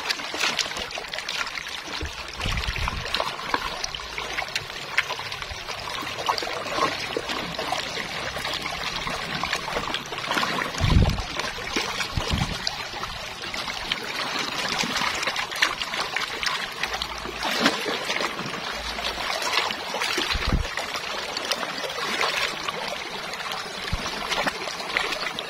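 Shallow running water trickling and splashing while a plastic toy truck is rinsed and scrubbed by hand in it. A few dull low thumps come through, around a tenth and around four fifths of the way in.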